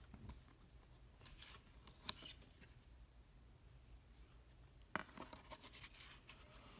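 Faint rustling and scraping of cardboard disc-holder panels being handled, with a soft click about two seconds in and a sharper one about five seconds in. A Blu-ray disc is being slid out of its cardboard slot.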